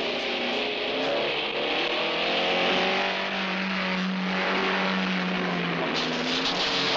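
A 1966 Ford Mustang's engine revving hard under acceleration, its pitch rising and falling, with a steadier held note in the middle, over a steady hiss of tyres on a dirt road.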